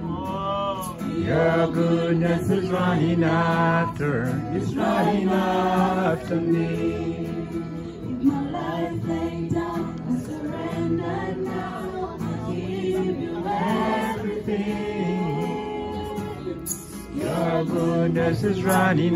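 People singing a worship song together.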